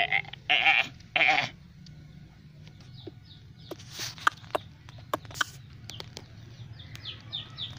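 Three short bleating animal calls in quick succession, followed by scattered faint clicks and short chirps.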